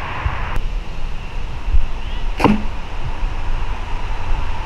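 A single quick whoosh about two and a half seconds in, sweeping down in pitch from high to low, over a steady low rumble.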